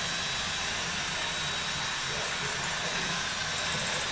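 Electric drill running steadily with a thin, high, even whine as it bores into the metal furring channel of a ceiling frame.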